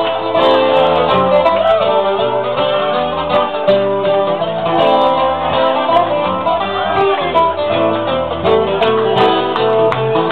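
Music led by guitar and other plucked strings, a busy, continuous run of notes.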